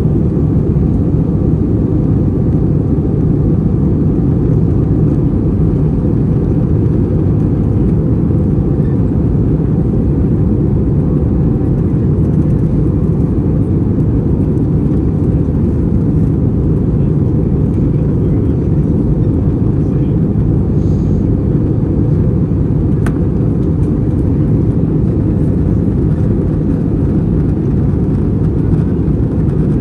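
Steady cabin noise inside an Airbus A321 in flight: the IAE V2500 engines and airflow make an even, low rumble that does not change.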